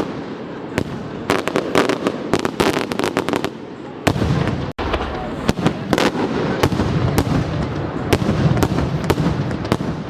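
Fireworks going off: a dense, irregular run of sharp cracks and bangs over a continuous rumble, cutting out for an instant a little before the middle.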